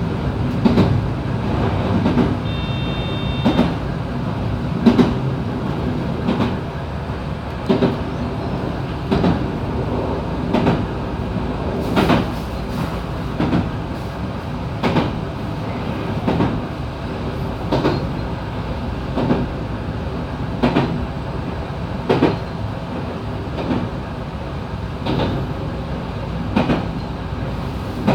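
Electric commuter train running along the line, heard from inside the car: a steady rumble and hum of the running gear, with a sharp click of the wheels over rail joints about every second and a half, and a brief high tone about three seconds in.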